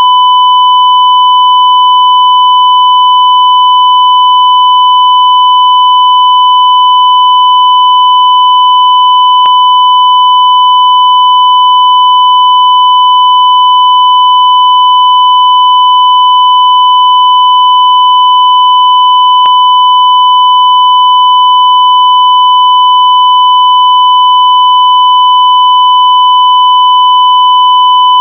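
Censorship bleep tone: one loud, steady, high-pitched beep held without a break, with a faint click twice, about ten seconds apart.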